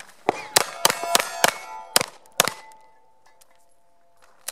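A fast string of about six 9mm shots from a CZ P09 pistol in roughly two and a half seconds, each answered by the clang of a hit steel target. The plates go on ringing after the last shot and fade away.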